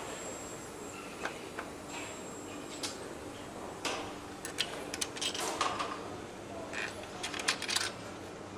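Light metal clinks and taps of an alternator and brackets being handled and fitted onto a Mercedes-AMG V8 engine, scattered through the middle and latter part, over a steady factory hum.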